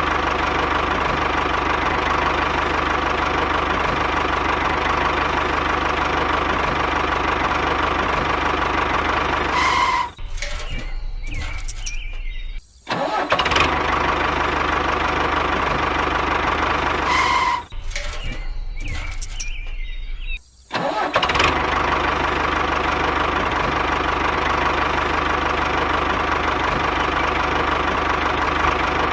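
Engine running steadily. Twice it changes for a couple of seconds and then cuts out for an instant before the steady running resumes.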